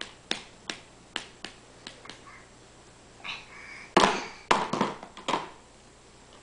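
Hard plastic rings of a baby's ring-stacking toy clacking. Light taps come about three a second at first. Near the end comes a short burst of louder knocks as the rings are pushed onto the post, with a brief faint voice just before it.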